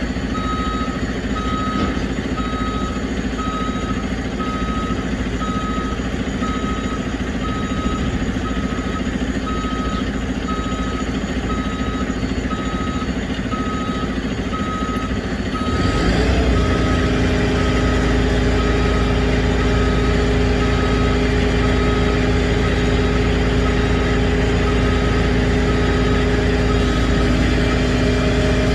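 Roll-off truck's backup alarm beeping steadily, about one and a half beeps a second, over its diesel engine idling. About halfway through, the engine steps up to a louder, steady higher hum as the hydraulic hoist is put to work, with the alarm still beeping.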